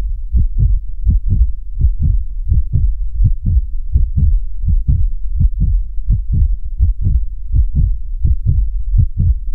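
Background music: a deep pulsing bass beat, about three even beats a second, with nothing higher in the mix.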